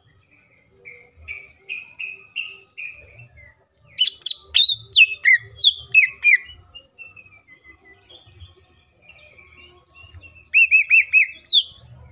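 Male greater green leafbird (cucak ijo) singing a varied song full of learned phrases. It opens with a run of short rising notes, gives loud, sharp downward-sweeping whistles about four seconds in, then softer warbling, and ends with a quick trill of about five notes.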